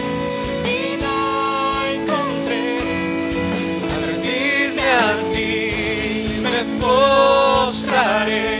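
Live worship band playing a slow Spanish-language worship song: guitars and bass holding steady chords under singing, with long held notes, the loudest about five and seven seconds in.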